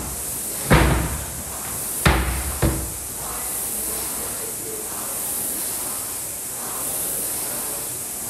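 A few heavy thuds of jumps landing on the rubber gym floor by a plyo box in the first three seconds. Then an air rowing machine's fan flywheel whooshes steadily, swelling with each stroke about every second and a half.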